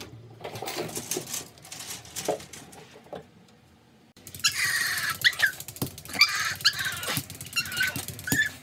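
A black-and-tan Shiba Inu vocalizing: from about four seconds in, a run of loud, high, wavering whines and yelps that rise and fall in pitch. Before that there are only soft knocks and rustles.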